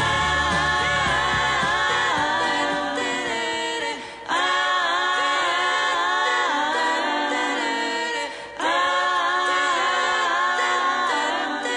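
A cappella vocal harmony: several voices sing sustained, gliding chords in phrases, with short breaks about four and eight and a half seconds in. The bass and drums of the backing track drop out just after the start.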